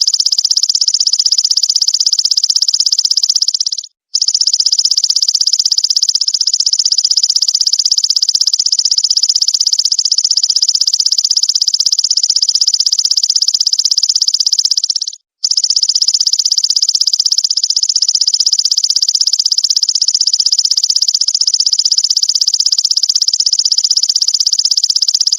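Golden grasshopper (belalang emas) call: a loud, high-pitched, rapidly pulsing buzz that cuts out briefly twice before resuming.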